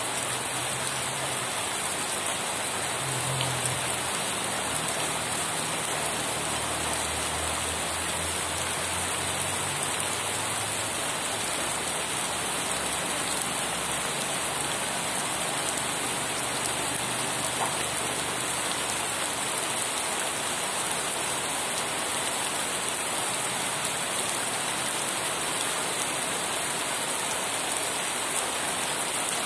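Steady, heavy rain falling and hissing evenly, with a faint low rumble through the first ten seconds or so.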